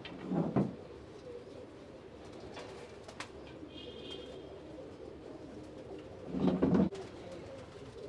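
Domestic racing pigeons cooing steadily, with two louder coos close by, one about half a second in and one near six and a half seconds.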